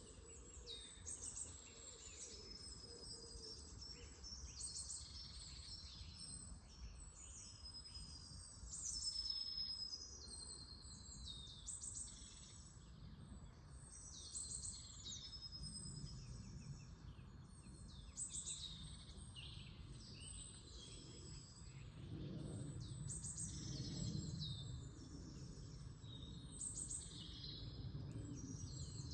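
Several songbirds singing and calling together, with many short high chirps, trills and whistles overlapping. Beneath them is a faint low rumble that grows louder around the middle and again about three-quarters of the way through.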